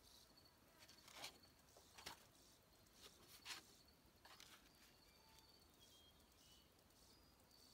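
Near silence, with a few faint rustles of a sheet of paper being handled and laid down on concrete, and faint high chirps in the background.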